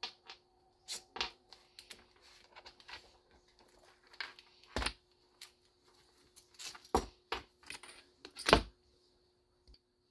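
Hands handling a motorcycle ignition coil and its condenser on a wooden workbench: a string of small clicks and knocks, the loudest about 5, 7 and 8.5 seconds in.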